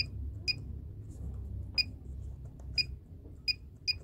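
Ration-shop ePoS machine giving short electronic key-press beeps, six single beeps at uneven intervals as its keys are pressed.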